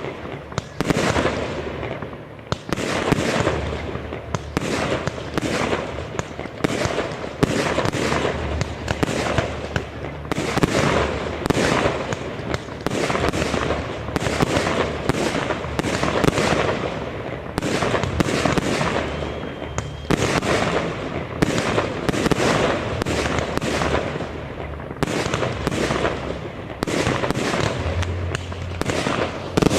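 Aerial fireworks display: shells bursting in quick, nearly continuous succession, with only brief lulls between volleys.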